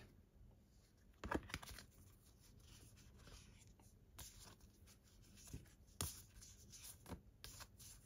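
Near silence with a few faint rustles and taps of stiff, textured collector cards being handled, the clearest about a second in.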